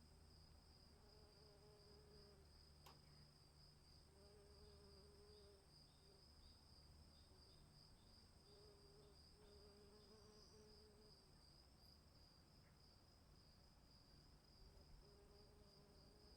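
Faint crickets chirping in a steady, high-pitched continuous trill, with a lower warbling call that comes and goes four times.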